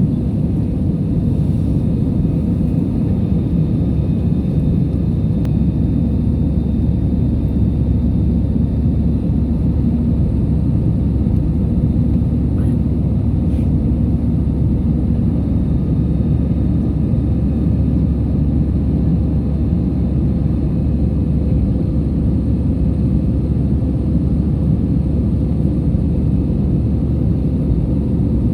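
Airliner engines and airflow heard inside the passenger cabin as a steady low rumble, with no change in pitch or level.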